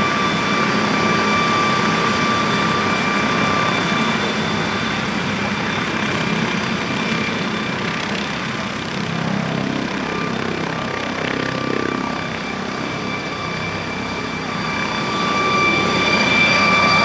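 McDonnell Douglas MD 902 Explorer helicopter running on the ground, its turbines whining steadily over the noise of the turning main rotor. The sound swells near the end as it lifts off.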